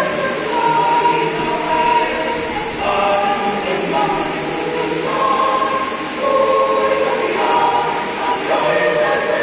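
Mixed choir of men's and women's voices singing, holding full chords that move to new ones about every second.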